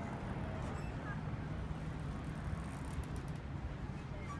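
Steady low rumble of outdoor background noise with a faint hiss, and a few faint short chirps.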